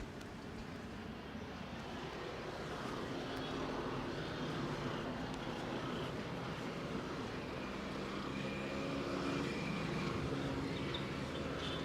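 An engine running nearby, its steady hum slowly growing louder over several seconds.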